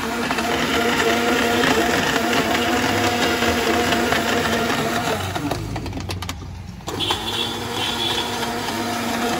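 Small electric countertop blender running at speed, blending papaya juice. About five and a half seconds in the motor is switched off and winds down, falling in pitch, then it is switched back on about a second later and runs on steadily.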